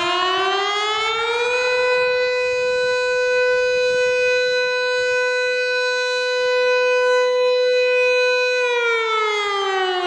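Finnish civil defence warning siren: a single wailing tone that rises in pitch for about the first second and a half, holds steady for about seven seconds, then falls again near the end.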